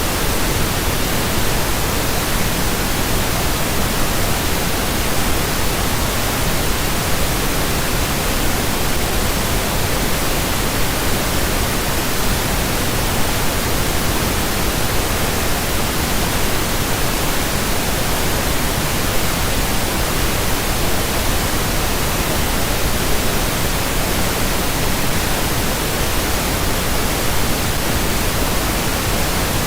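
Steady pink noise: an even, unchanging hiss spread across all pitches, generated for sleep masking.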